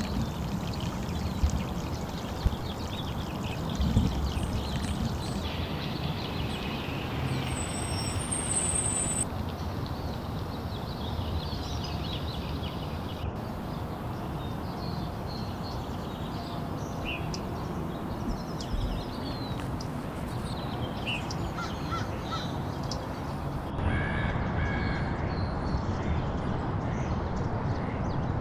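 Outdoor ambience by an urban river at dawn: birds calling, crows cawing among them, over a steady low rumble. The background changes abruptly a few times where shots are cut together.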